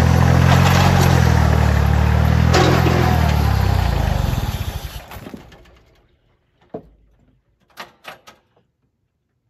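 Compact loader tractor's engine running as the tractor pulls up, then shut off and winding down to silence about five seconds in. A few faint knocks follow.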